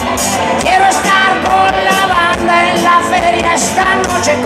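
Rock band playing live on electric guitar, bass and drums, with singing.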